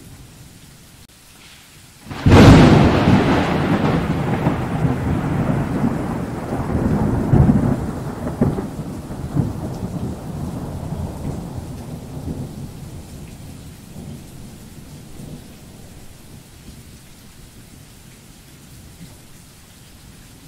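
A close thunderclap: a sudden sharp crack about two seconds in, then rumbling that rolls on and slowly fades over some ten seconds, with a couple of louder swells along the way. Steady rain hisses underneath throughout.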